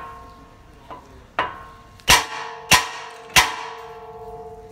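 A hammer striking the steel steering knuckle (spindle) of an Acura MDX to shock the tie rod end's tapered stud loose. There is a light tap, then four hard metallic blows about two-thirds of a second apart, each ringing on after the hit.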